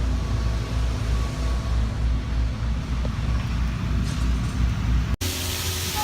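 A steady low rumble of outdoor noise that cuts off abruptly about five seconds in, giving way to a different background with faint steady ringing tones.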